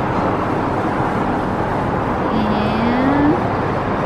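Steady road traffic noise from the street below, with one rising note about two and a half seconds in as a vehicle speeds up.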